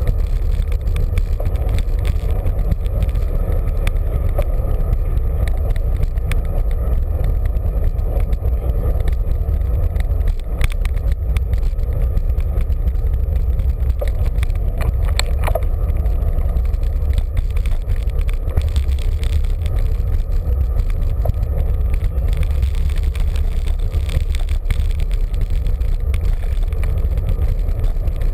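Wind buffeting the microphone of a camera on a moving bicycle: a steady low rumble, mixed with tyre and road noise.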